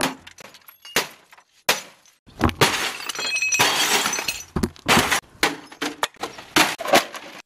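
Things being thrown at and smashed against an old CRT television's casing: an irregular series of sharp impacts with cracking and breaking, a dozen or so over several seconds.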